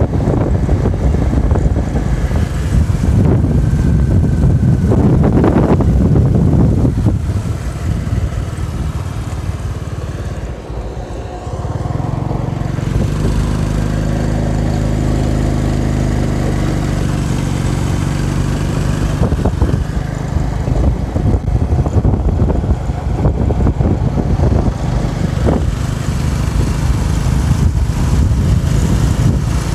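Motorbike engine running under heavy wind buffeting on the microphone while riding. About twelve seconds in the wind noise drops and the engine settles into a steady, even hum.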